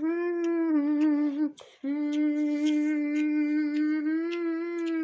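A person humming two long, steady notes at the same pitch, the first about a second and a half long, the second about three seconds, with a short break between.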